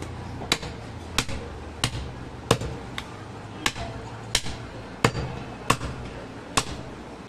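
Heavy chopping knife striking through a goat leg into a wooden stump chopping block as the leg is cut into pieces: about ten sharp chops in a steady rhythm, roughly one every two-thirds of a second.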